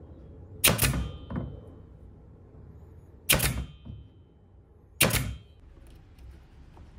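Brad nailer firing three times into a small wooden block, each shot a sharp clack with a brief metallic ring, spaced about two and a half and then two seconds apart; a lighter knock follows the first shot.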